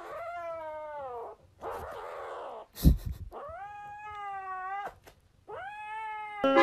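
Grey kitten meowing in three long, drawn-out calls, the first falling in pitch, with a breathy noise between the first two and a sharp knock about three seconds in.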